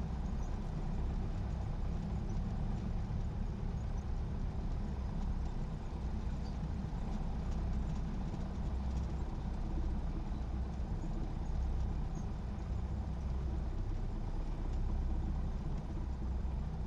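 Light single-engine aircraft's piston engine running steadily at low power, a low even hum with no change in pitch, before the power is brought up for takeoff.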